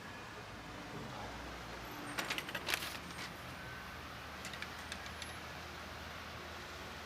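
Light clicks and clinks in a quick run about two seconds in, with a few fainter ticks a little later, over a steady low hum of outdoor traffic.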